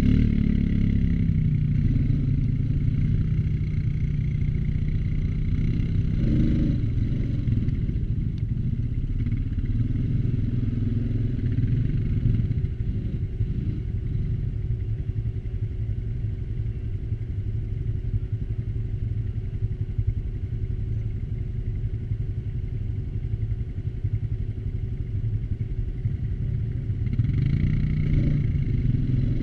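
ATV engine running continuously while being ridden along a trail. Its note drops in the first second or so, holds fairly steady, and picks up again near the end.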